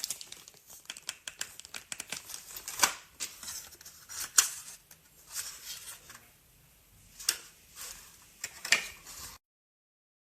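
Handling noise: irregular sharp clicks and crinkling rustle, with a few louder snaps, cutting off suddenly a little after nine seconds in.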